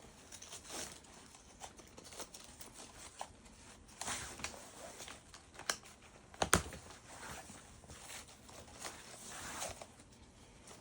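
Soft rustling and handling of a fabric bandolier pouch as its strap end is folded over and tucked under a side flap, with a few light clicks, the sharpest about six and a half seconds in.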